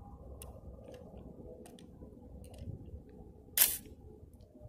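Egyptian Hakim semi-automatic rifle being handled and loaded: a few faint clicks, then one sharp metallic clack about three and a half seconds in as the action is worked.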